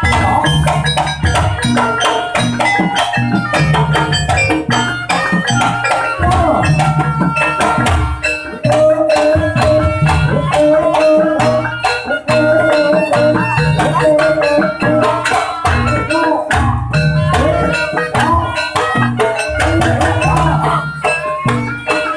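Jaranan accompaniment music: drums and struck percussion keep a steady, driving beat under a melody line, which holds long notes through the middle.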